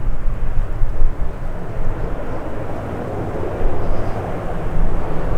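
De Havilland Canada Dash 8-400 turboprop airliner passing on its landing approach, a steady rumbling engine noise that swells and fades, with gusty wind buffeting the microphone.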